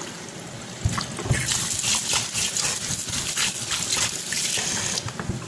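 Water running and splashing into a container in a kitchen, with small knocks and clatters throughout.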